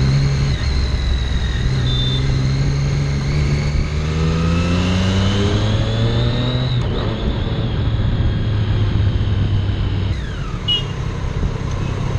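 Triumph Daytona 675R's inline three-cylinder engine and exhaust on the move, a smooth note. The revs climb steadily from about two seconds in until nearly seven seconds, then drop and hold steady.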